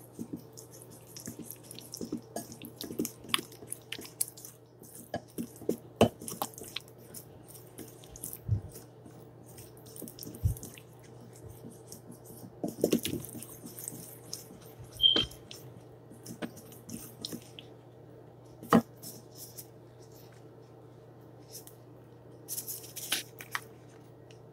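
Wooden spoon stirring a thick spiced marinade in a glass bowl: irregular clicks and taps of the spoon against the glass, with soft wet squishing. A steady low hum runs underneath.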